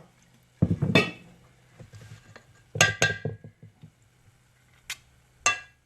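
A metal teaspoon clinking against a bowl several times with short ringing clinks, as batter is scooped and knocked off the spoon.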